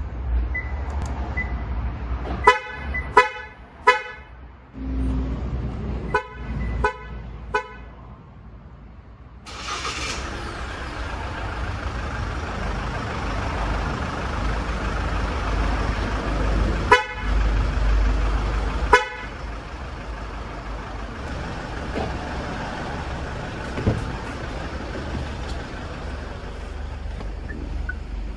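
SsangYong G4 Rexton's horn chirping from the remote-start alarm, three short chirps in quick succession twice. About ten seconds in the engine starts and keeps running steadily, and two more single horn chirps come near the middle.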